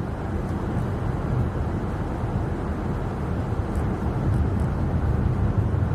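Car driving on a snowy road: a steady low rumble of tyres and engine, with a few faint ticks about four seconds in.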